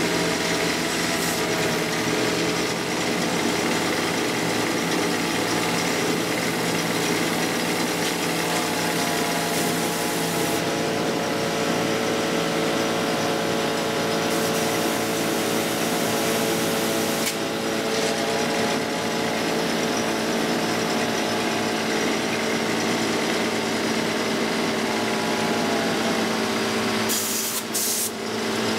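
Honda four-stroke outboard motor running steadily on test, its pitch wavering slightly now and then. A few sharp clicks near the end.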